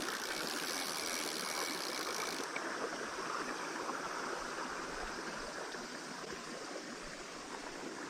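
Steady rush of a flowing stream; its high hiss drops away about two and a half seconds in.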